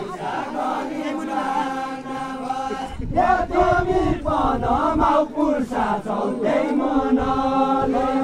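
Deuda, the Far-Western Nepali folk song, sung in unison by a group of dancers. They hold long, drawn-out notes near the start and again near the end, with a more moving phrase in between.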